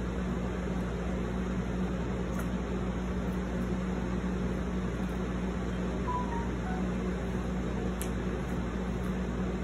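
Steady room background noise: a constant low hum with an even hiss, like a fan running. There are a few faint clicks, one about two seconds in and one near the end.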